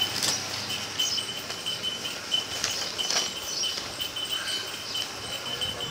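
Quiet background hiss with a faint high-pitched tone that pulses on and off, like a chirp, and a few soft clicks.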